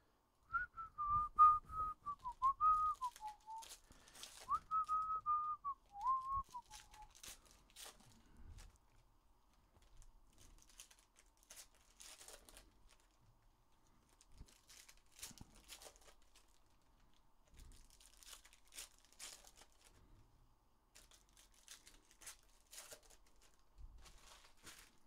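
A person whistles a short wavering tune for the first several seconds. After that come faint scattered crinkles, tearing and clicks: foil trading-card packs being torn open and the cards handled.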